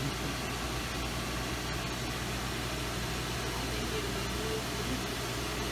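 HydroMassage water-jet massage bed running: a steady whirring rush from its pump and jets, with a constant low hum underneath.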